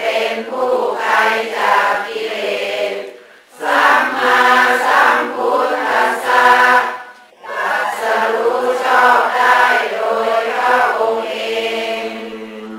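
Melodic chanting in long held phrases, broken by two short pauses about three and seven seconds in, with a last long note fading near the end.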